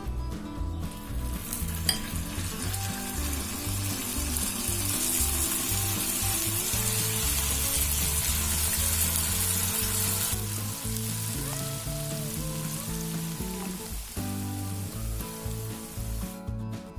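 Masala-coated ivy gourd pieces sizzling as they deep-fry in hot oil. The sizzle starts about a second in, is loudest for about the next nine seconds, then goes on more softly until near the end, with background music underneath.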